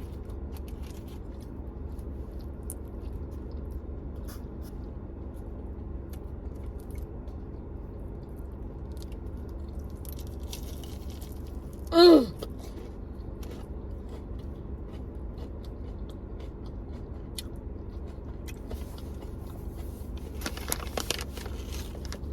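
Chewing and crunching on fried chicken, with scattered small clicks and a denser crackly patch near the end, over a steady low hum. About halfway through, one short, loud pitched sound falls in pitch.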